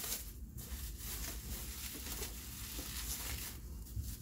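Bubble wrap and packing material crinkling and rustling as they are handled and cut open, a dense run of small crackles.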